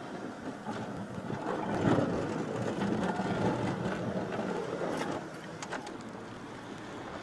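A vehicle passing on a snow-covered road: a noisy rush that swells over a few seconds and eases off again, with a few clicks.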